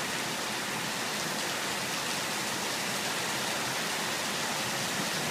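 Heavy rain pouring down in a downpour, a steady even rush of water with no break.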